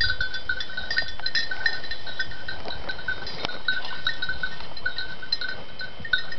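A small bell, of the kind worn on a hunting dog's collar, clinking irregularly over and over as the dog moves. A faint steady high tone runs underneath.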